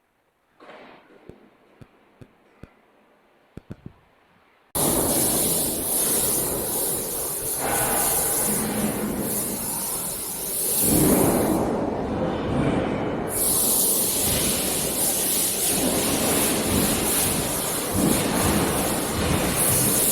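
A few faint clicks, then about five seconds in, loud steady machinery noise cuts in: a 4YZ-4S corn harvester running, with a strong high hiss over a dense rumble.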